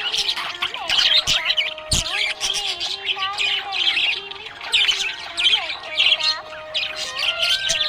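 Budgerigar chirping and warbling without pause, a fast run of short high chirps mixed with a few held whistled notes.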